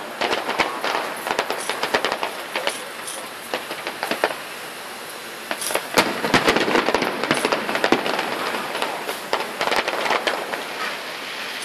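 Fireworks display: rapid crackling and popping bursts of shells, thinning out for a moment in the middle, then a dense volley of bangs about halfway through.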